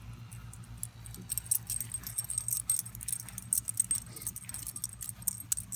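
Small metal pieces jingling in quick, irregular clinks, like keys or tags shaken together, over a steady low hum.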